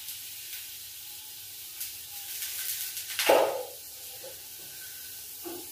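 Food sizzling steadily in a pan on a gas stove with its lid lifted off, steam escaping. About three seconds in there is a louder, sudden clatter.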